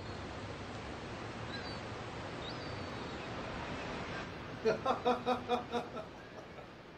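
Steady hiss, then about five seconds in a person laughs briefly in a quick run of about seven 'ha' pulses.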